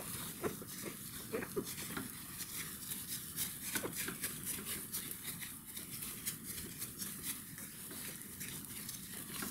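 An alcohol-and-chlorhexidine wipe scrubbed back and forth over the skin of a practice arm by a gloved hand: a faint, irregular rubbing and scuffing.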